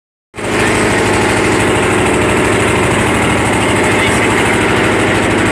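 An engine running steadily at a fast, even beat, cutting in abruptly right at the start.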